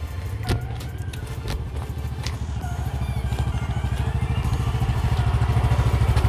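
Motorcycle engine running with a rapid, even pulsing beat that grows gradually louder.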